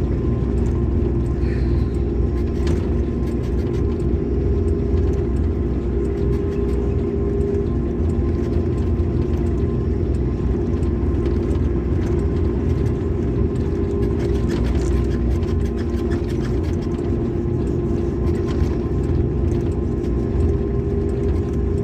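Excavator's engine running steadily as it travels along a road: a deep, even rumble with a constant hum over it.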